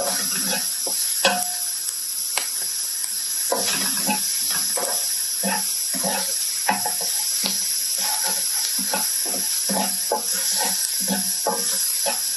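Chopped onion and garlic sizzling in hot oil in a ridged wok, with a spatula scraping and stirring across the pan in repeated strokes.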